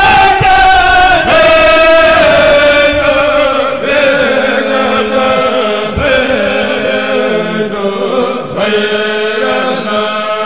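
A kourel of men chanting a Mouride khassaid a cappella in unison through microphones, in long drawn-out notes. The melody sinks slowly over the first few seconds, then holds on steadier, lower notes.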